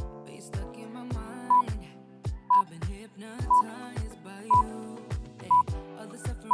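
Workout countdown timer beeping: five short, high beeps one second apart over background R&B-style music with a steady beat.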